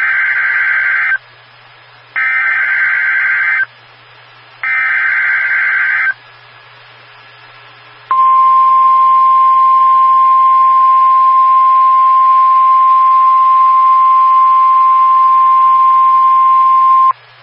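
Emergency Alert System SAME header: three bursts of warbling digital data tones, each about a second and a half long with a second's gap between them, encoding a severe thunderstorm watch. After a pause of about two seconds, the NOAA Weather Radio attention tone sounds as one steady single-pitch beep for about nine seconds, signalling that an alert message follows.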